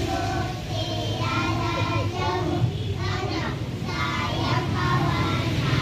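Young children singing, high voices in short phrases, over a steady low hum.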